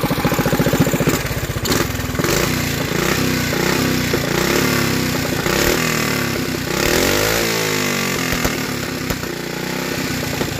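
Flathead Briggs & Stratton single-cylinder minibike engine running on methanol. It revs up from a slow idle about a second in and holds a higher speed with a brief dip and rise in pitch, then drops back toward idle near the end.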